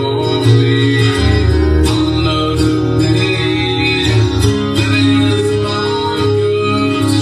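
Guitar-led music playing, with steady bass notes that change every second or so.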